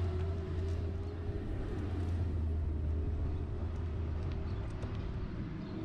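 A motor vehicle running steadily: a low, even drone with a constant higher whine over a haze of road noise.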